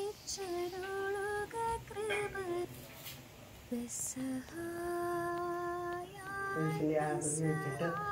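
A female voice singing a slow melody with long held notes. A lower voice joins near the end.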